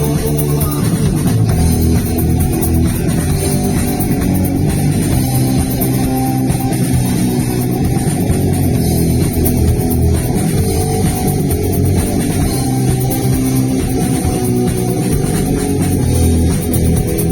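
Live rock band playing loudly: electric guitar, bass guitar and drum kit with cymbals, a dense, steady wall of sound.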